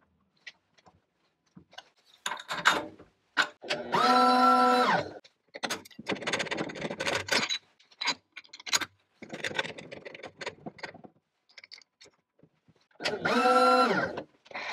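Metal shop handling sounds: steel parts and tooling clinking and knocking against the mill vise, with two short mechanical whirs, each about a second long, near the start and near the end, that spin up and wind back down.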